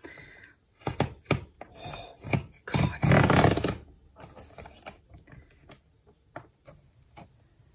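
Westcott sliding paper trimmer cutting a thick stack of planner pages: a few clicks and scrapes as the pages are positioned, then the blade carriage is dragged along the rail for about a second, loud and scraping. The blade tears the paper as much as it cuts it, with shreds of paper ripping off along the edge.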